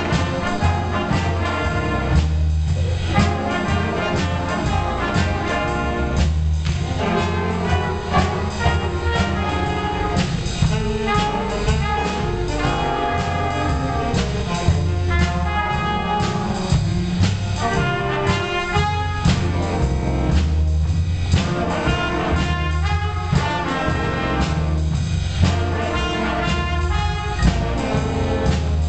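Student jazz big band playing a blues, with the trumpets and trombones to the fore over saxophones, piano, upright bass and drum kit, at a steady beat.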